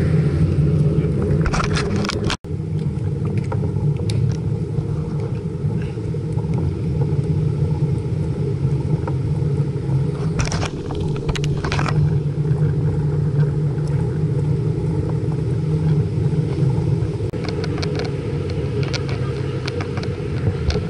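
Wind buffeting and road noise on a bicycle-mounted camera's microphone while riding: a loud, steady low rumble. It cuts out for an instant about two seconds in, and a few brief clicks sound near the middle and near the end.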